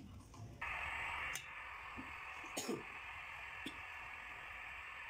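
Steady hiss of a gas stove burner under a wok, starting abruptly about half a second in, louder for its first second and then settling. A few light clicks and taps of utensils sound over it.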